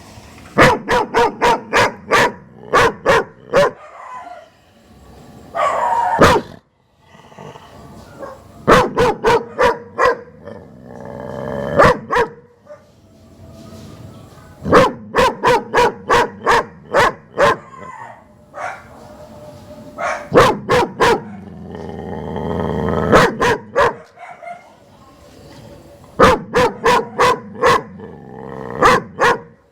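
Dog barking in runs of quick, sharp barks, about three a second, with pauses of a few seconds between runs.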